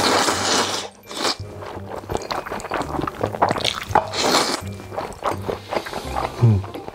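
A person eating close to the microphone: bites and chewing that make many short clicking mouth sounds, loudest in the first second, over background music with a repeating low bass.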